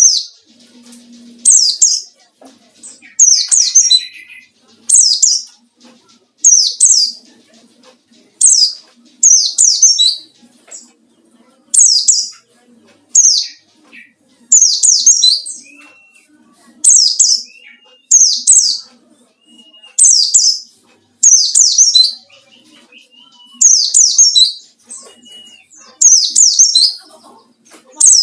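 Small-bird chirps of a white-eye (pleci), the high, falling phrase repeated about once every second or so, with brief pauses between phrases. This is the rival-challenging call that the title says the bird gives.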